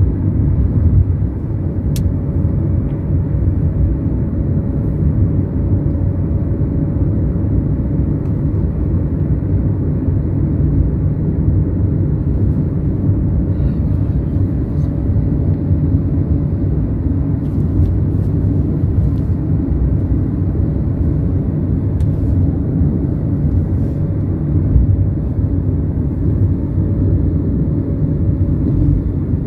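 Doha Metro train running: a steady low rumble, with a faint steady tone over it for long stretches.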